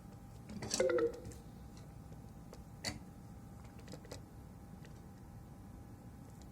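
A few small, sharp clicks of soldering tools touching the controller's circuit board during desoldering, the clearest about three seconds in, over a faint steady whine.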